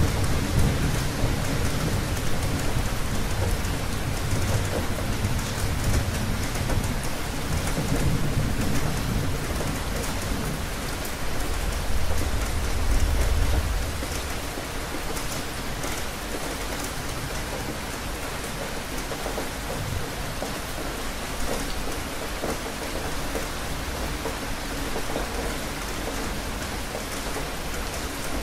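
Steady rain falling, with a low roll of thunder rumbling through the first half. The thunder is loudest just before it dies away about halfway through, leaving the rain alone.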